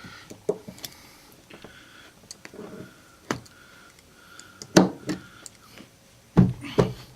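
Knife cutting an X through molded car carpet and its tough backing pad, with scattered short clicks and scrapes. A few heavier knocks and handling thumps come near the end.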